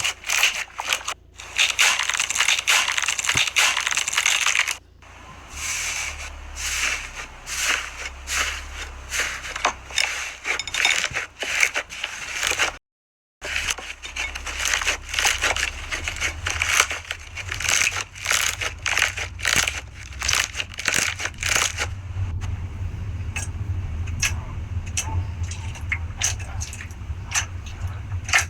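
Slime being squeezed and worked by hand, making dense crackling and popping clicks. The sound breaks off abruptly twice, about 5 and 13 seconds in.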